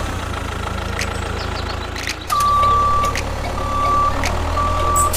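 A vehicle's reversing alarm sounds three long beeps at one steady pitch, starting about two seconds in, over a steady low motor hum.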